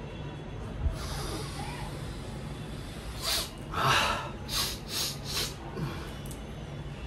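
A man sniffing hard through his nose, about five sharp sniffs in a row, the loudest about halfway through, acting out snorting a drug. A short low thump about a second in.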